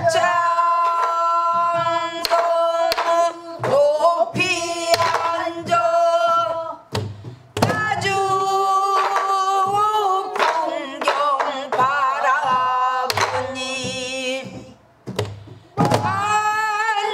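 A woman singing a pansori-style danga in long, held, wavering notes, broken into phrases. Sparse strokes on a buk barrel drum punctuate the song.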